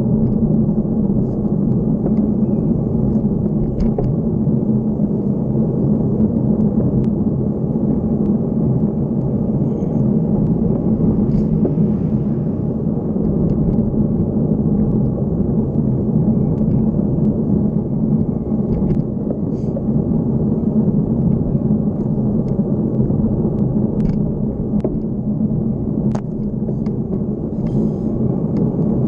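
Motorcycle engine running at a steady cruise, heard from on the bike, with a steady rumble of wind and road noise.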